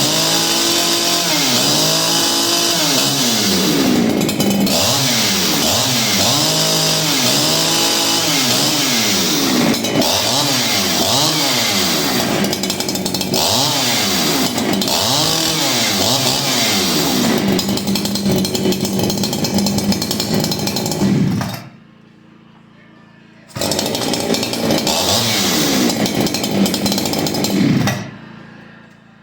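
Farmertec Holzfforma G288 two-stroke chainsaw, a 288XP clone, revved up and down again and again in throttle blips, then held at full throttle for a few seconds. It falls away suddenly, comes back with another run of revs, and falls away again near the end. The muffler note almost sounds like a ported saw's.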